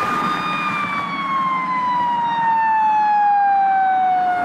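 Fire engine siren wailing: the tone holds high for about a second, then winds slowly and steadily down in pitch, over the hiss of road traffic.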